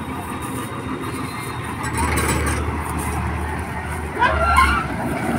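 Combine harvester's engine running steadily as it cuts rice paddy, a low rumble. A brief voice rises over it about four seconds in.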